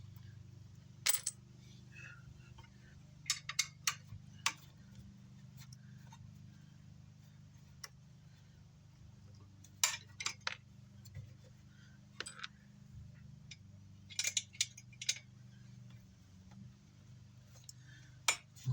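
Small metal clicks and clinks of screws and a screwdriver against the metal amplifier chassis during disassembly, some single and some in quick runs of three or four, over a steady low hum.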